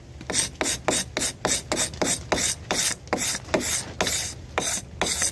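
A hand scraper dragged in quick short strokes, about four a second, across cured epoxy resin on wood, rasping it off the surface. The strokes stop abruptly near the end.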